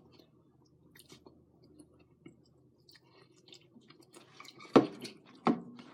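Close-up mouth sounds of someone chewing and eating noodles, with small wet clicks, then two louder sharp sounds near the end.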